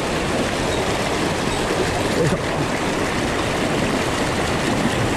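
Fast mountain stream rushing over boulders in white-water riffles: a steady, loud rush of water.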